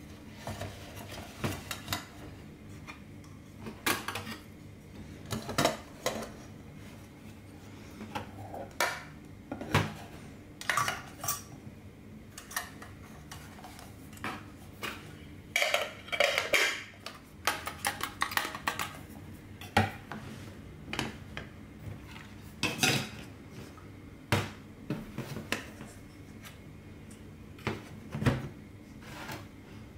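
Metal camping cookware being handled and packed: an aluminium kettle, a brass alcohol stove and stainless steel cups clink and knock against each other and the metal table in an irregular run of separate strikes, with a denser rattle about halfway through.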